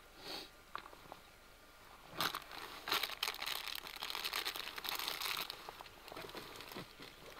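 Packaging crinkling as it is handled in the hands, in a dense run starting about two seconds in and lasting some three seconds, with lighter scattered crackles before and after.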